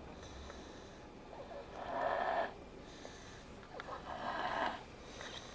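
A young girl snoring in her sleep: two snores, each just under a second long, about two seconds apart, with quiet breathing in between.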